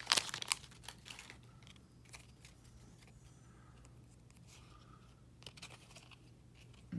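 Trading cards and a pack wrapper being handled: crinkles and clicks in the first second, then a few faint taps as cards are flipped through.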